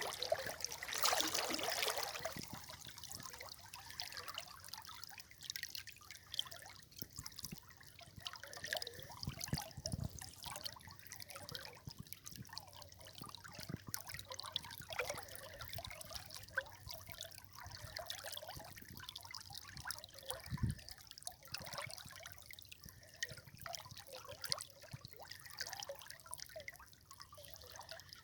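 River water trickling and splashing over stones, with an uneven patter of small drips and splashes and a louder gush about a second in.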